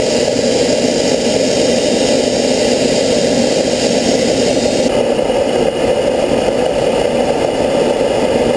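Homemade turbojet engine built from a turbocharger, running steadily: a loud, continuous rushing roar. The high hiss drops slightly about five seconds in.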